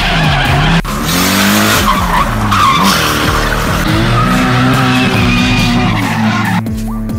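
A drift car sliding with heavy wheelspin: the engine revs rise and fall over the squeal of the tyres, with a hard cut just under a second in.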